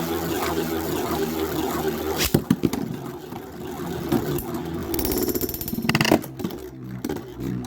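Two metal Beyblade spinning tops, Storm Pegasus 105RF and Dark Cancer CH120SF, whirring as they spin against each other, with a few sharp clacks of metal wheels colliding about two seconds in and again around six seconds in.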